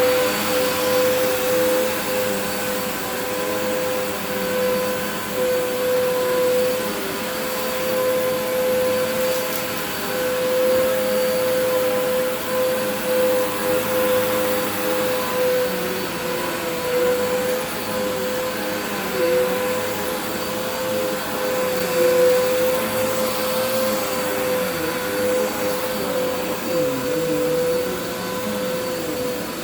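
Vacuum cleaner running steadily with a constant high motor whine, its pitch and level wavering slightly as it is pushed over the floor.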